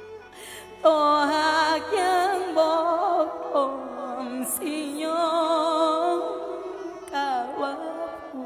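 Mor lam singing: a woman's voice entering about a second in with long, ornamented melismatic phrases and heavy vibrato, over a steady held drone.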